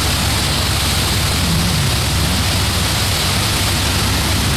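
Steady rush of churning wake water beside a moving ship, over a low steady engine hum. A faint engine note dips and rises briefly about a second and a half in.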